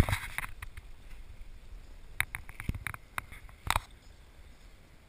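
Handling noise from a handheld camera being moved: scattered clicks and knocks over a low rumble, with a burst at the start and the loudest knock just before four seconds in.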